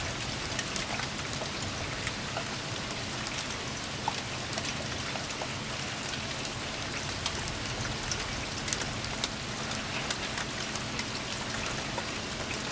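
Steady rain falling, a continuous hiss with many scattered sharp ticks of individual drops.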